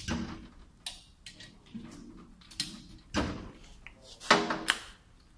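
Metal tools and a bare aluminium engine block being handled on a steel workbench: a run of sharp metallic clanks and short scraping sounds, the loudest about four and a half seconds in.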